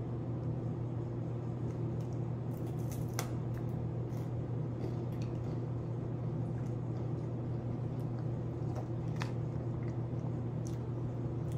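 A steady low hum, with a few faint clicks from chewing a candy.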